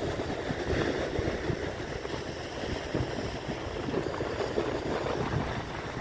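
Sea waves breaking and washing over shore rocks, a steady rushing surf, with wind buffeting the microphone.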